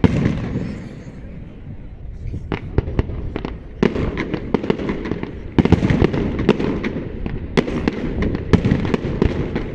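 Fireworks display: a deep boom at the start, then sharp bangs and crackles coming faster and faster, becoming a dense barrage over a steady rumble from a little past halfway.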